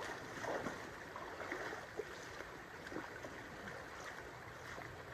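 River water running over a shallow gravel edge, a steady rushing, with a few faint splashes and knocks from wading in it.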